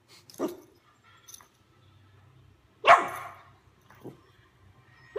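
Dog barking: a soft short yip about half a second in, one loud bark about three seconds in, and a small short one about a second later.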